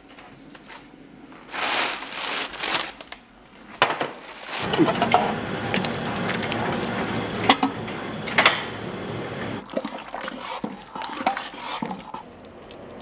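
Rice grains and sesame being mixed in a metal pan: a brief rustle, then several seconds of scraping with sharp clinks of a utensil against the pan, thinning to scattered clinks near the end.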